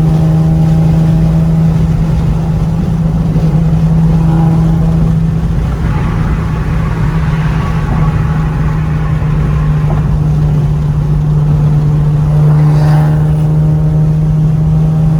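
Infiniti G37's V6 engine and road noise droning steadily inside the car's cabin while driving, one low hum holding a constant pitch over a rumble.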